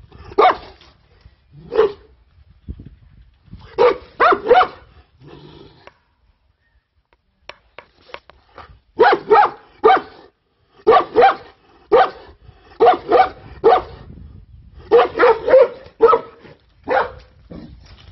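Anatolian shepherd dog barking repeatedly, in loud clusters of two to five short barks, with a pause of two to three seconds about a third of the way in.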